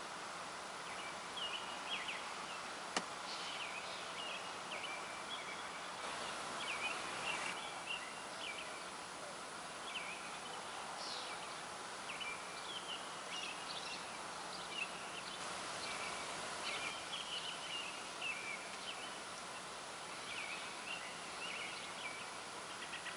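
Birds chirping in short, scattered calls over a steady outdoor hiss, with a single sharp click about three seconds in.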